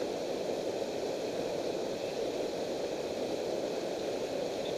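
Steady rush of river water pouring over a low dam, an even, unbroken noise.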